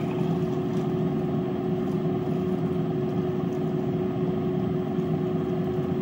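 Steady whirring hum of a running kitchen appliance, with one held tone and no change in pitch or level.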